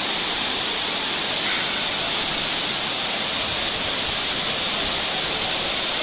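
Tukad Cepung waterfall pouring into its plunge pool: a steady, unbroken rush of falling water.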